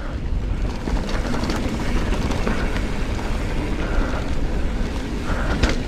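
Giant Trance 3 mountain bike rolling fast down a dirt singletrack: knobby tyres on packed dirt with small clicks and rattles from the bike, and wind rushing over the GoPro microphone. A brief clatter comes near the end.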